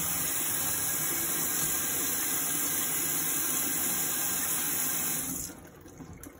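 Kitchen faucet running, the water splashing into a stainless steel sink and over a leather handbag being rinsed. The water shuts off about five and a half seconds in.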